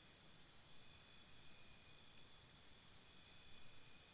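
Near silence: faint background noise with a thin, steady high-pitched tone.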